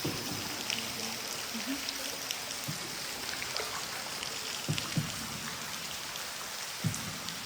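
Water dripping from a cave ceiling and trickling, many small irregular drops over a steady watery hiss, with a few dull knocks about three, five and seven seconds in.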